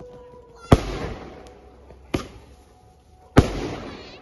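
Aerial firework shells bursting overhead: three sharp bangs, a little over a second apart, each dying away over about a second.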